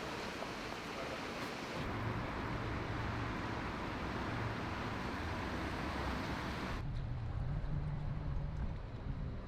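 A rushing, hissing wash of floodwater, joined about two seconds in by a motor running with a low steady hum. The sound changes abruptly twice, and after the second change the hum carries on more muffled.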